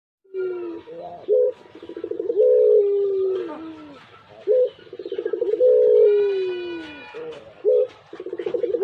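Pugeru dove cooing its long call over and over: each phrase is a fast rolling trill that runs into a long, falling coo, repeating about every three seconds, with short single coos between.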